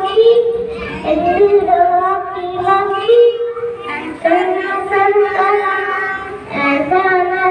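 A young boy singing into a handheld microphone in phrases of held notes, each about a second long, with short breaks between them.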